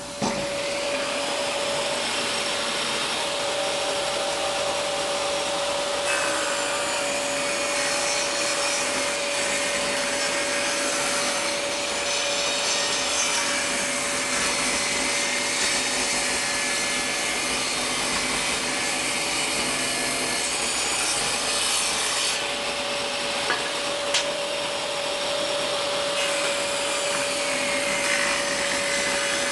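A Total TS5152542 10-inch table saw starts up and runs with a steady whine, its blade ripping a pine board lengthwise into a 5 cm strip; the cutting noise shifts a few times as the board is fed through.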